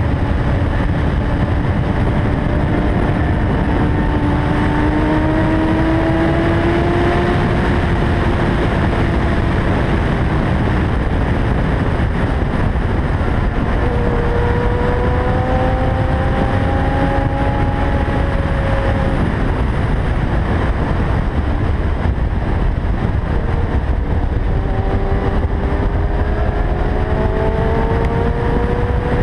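Loud wind rush on a helmet-mounted camera while a Kawasaki ZX-10R sport bike cruises at highway speed. Its inline-four engine note sits faint under the wind and slowly rises in pitch three times as the bike accelerates.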